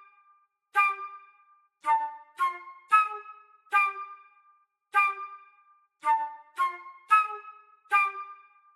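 A short instrumental melody of about a dozen separate pitched notes, each struck sharply and fading out quickly, with pauses between phrases.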